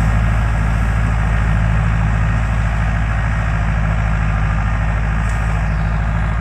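Farm tractor engine running steadily under load as it pulls a furrower cutting planting rows, a constant low hum.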